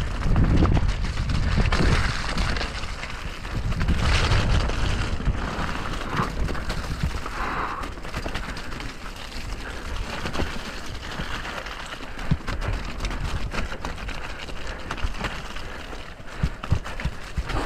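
Mountain bike descending a wet, muddy, rocky trail at speed: wind rushing over the microphone, tyres rolling over mud and rock, and the bike clattering, with sharp knocks here and there as it hits rocks.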